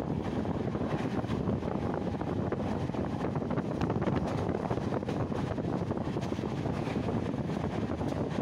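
Passenger train running at speed, heard at an open carriage window: a steady rumble of the wheels on the track mixed with wind buffeting the microphone.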